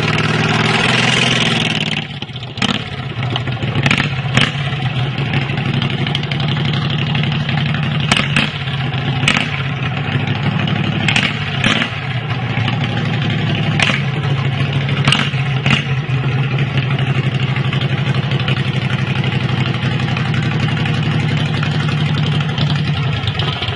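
A mini chopper's 18-horsepower 614 cc V-twin engine idling steadily, with about ten sharp knocks scattered through the first two-thirds. The engine cuts off suddenly at the end.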